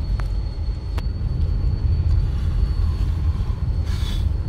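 Car driving slowly on a rough dirt road, heard from inside the cabin: a steady low rumble with a few light knocks.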